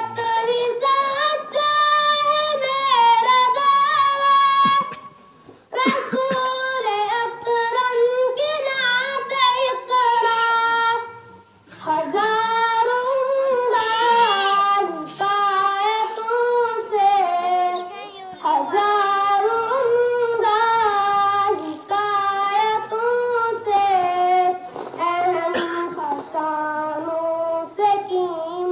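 A young boy singing a naat, an Islamic devotional poem, unaccompanied in a high voice. Long, wavering phrases are broken by brief pauses for breath.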